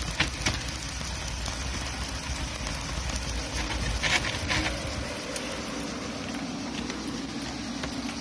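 Mountain bike rolling downhill on a loose gravel track, its tyres crunching, with a run of rattles and knocks over bumps a few seconds in.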